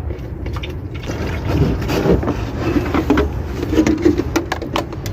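Distilled water being poured from a plastic jug into a car's coolant overflow reservoir, gurgling, with many small clicks and knocks of plastic over a steady low rumble.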